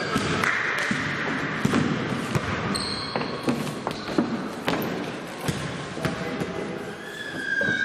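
Basketball bouncing on the court during play: irregular sharp bounces, with voices and a few short high squeaks.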